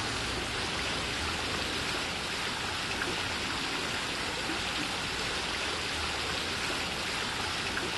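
Fountain water spilling over the rim of its bowl and splashing down into the basin: a steady, even rush of water.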